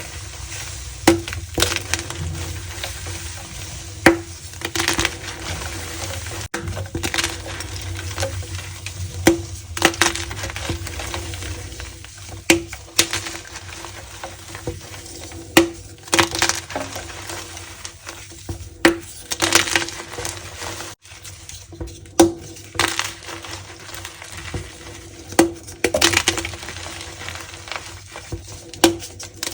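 Gym chalk being crushed and pressed by hand in a reform. The chalk gives a continuous crackly, crumbly texture and a sharp squeaky crunch every second or two.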